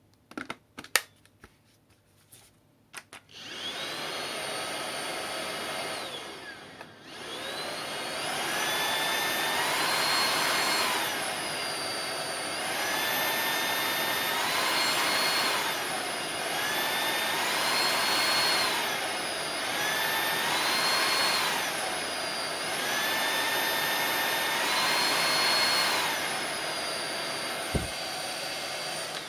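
iRoom RS1 cordless stick vacuum: a few clicks, then its motor starts with a whine about three seconds in. The sound drops away briefly and comes back, then runs with its pitch rising and falling every few seconds.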